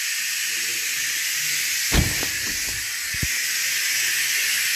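A steady hiss of workshop noise throughout. About two seconds in, a car door shuts with a sharp thud, followed by a few lighter knocks.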